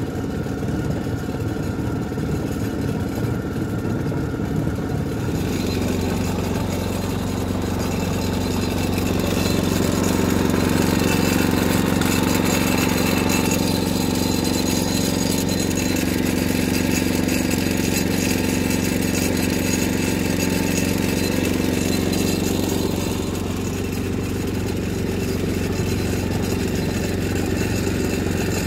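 Engine of a small tracked farm carrier running steadily. Its note steps up about five seconds in and eases off a little after about twenty-three seconds.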